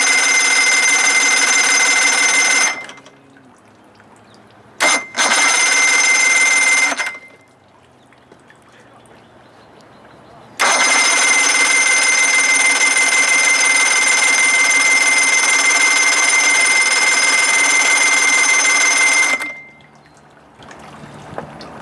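70 hp Johnson outboard's electric starter cranking the engine in three push-button tries, the last about nine seconds long, with a steady whine and gear rattle; the motor turns over but does not fire.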